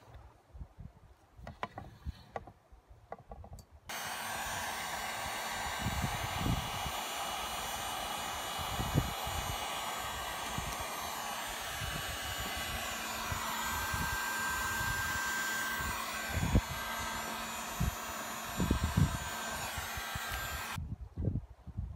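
HomeRight dual-temperature electric heat gun switched on about four seconds in, its fan blowing steadily with a low motor hum, and switched off about a second before the end. Its hot air is being played over the repaired wiring to shrink heat-shrink tubing. Low wind buffeting on the microphone runs underneath.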